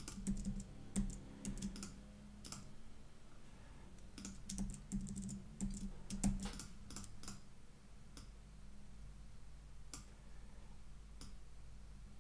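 Keystrokes and clicks on a computer keyboard in scattered clusters, busiest in the first couple of seconds and again around the middle, sparser near the end, over a faint steady low hum.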